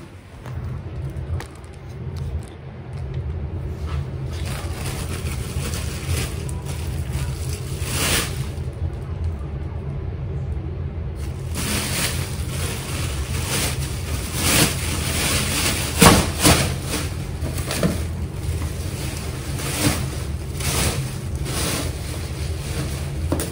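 Plastic trash bags rustling and small toys knocking as they are handled and bagged, many short sharp sounds that grow busier about halfway through, over a steady low hum.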